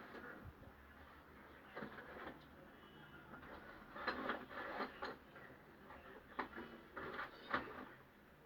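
Irregular short scrapes and clicks from plumbing work: tools and pipe fittings being handled, in scattered clusters with quieter stretches between.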